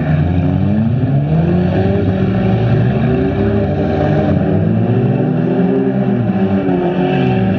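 Several front-wheel-drive stock car engines running and revving at once, their pitches rising and falling as the cars accelerate and slow.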